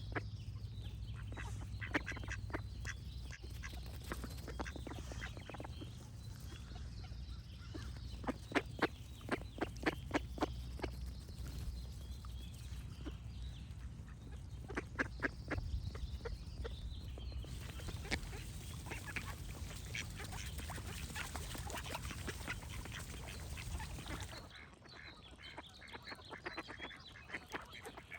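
Ducks quacking in runs of quick repeated quacks over a low steady rumble. About three quarters of the way through, the background cuts off abruptly and the quacking goes on over a quieter background.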